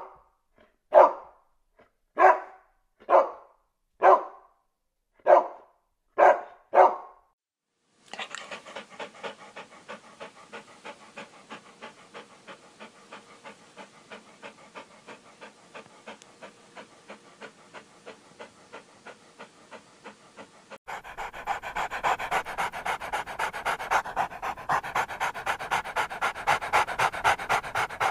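A dog barking in single barks about once a second. From about eight seconds in, a dog pants quickly, roughly three breaths a second, and the panting grows louder about twenty-one seconds in.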